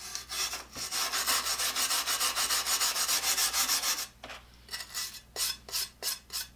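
Paper towel scrubbing the surface of a rusted, vinegar-soaked carbide-tipped circular saw blade: quick, even back-and-forth rubbing strokes, which about four seconds in become slower, separate strokes with short pauses between them.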